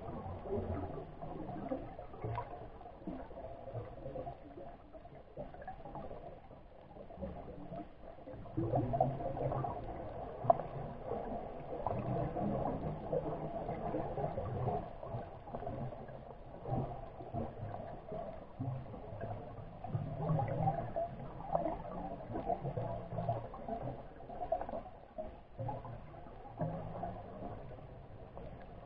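Underwater ambient noise heard through a reef camera: an irregular, fluctuating wash of water sound, mostly low, that grows louder about eight seconds in, with one sharp click about ten seconds in.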